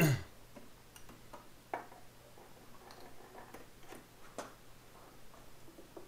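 Socket ratchet giving a few light, irregularly spaced clicks while turning a bolt.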